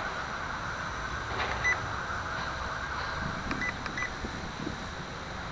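WLtoys V262 quadcopter hovering: a steady whirring rush of rotors and wind, with three short high beeps from its radio transmitter, one near two seconds in and two close together near four seconds.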